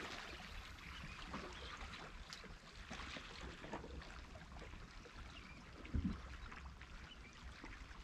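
Faint lapping and trickling of calm sea water against shoreline rocks, with a brief low thump about six seconds in.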